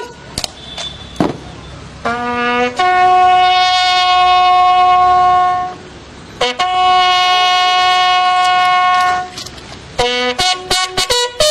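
A bugle sounding a funeral call. Twice, a short lower note steps up to a long held note of about three seconds, then a run of short quick notes follows near the end. Two sharp cracks come within the first second and a half.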